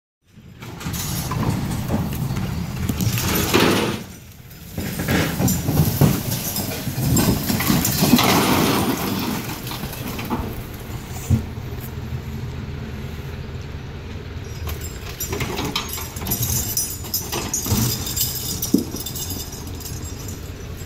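An engine running steadily under loud scraping and clanking of heavy sheet metal as a Saurer Berna truck cab is torn off its chassis and topples over, with a few sharp metal knocks later on.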